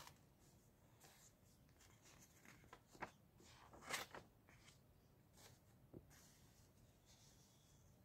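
Faint rustle of paper sheets being handled and a page being turned, in short bursts about three and four seconds in; otherwise near silence.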